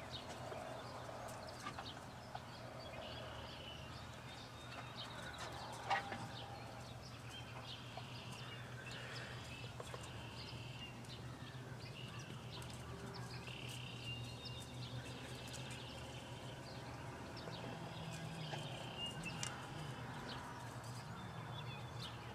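Rural outdoor ambience: birds calling every second or two over a steady low hum, with scattered light knocks and one sharper knock about six seconds in.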